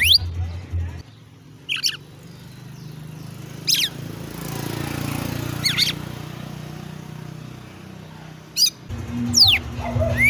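Red-cowled cardinal (galo-de-campina) singing: short, fast-sweeping whistled phrases, about six of them, one every second or two with gaps between, over a faint low hum.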